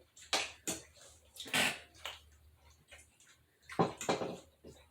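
Eating sounds during a meal of fried steak: scattered short wet smacks and chews, a few to the second at most, with the loudest about one and a half seconds in and another pair near the end.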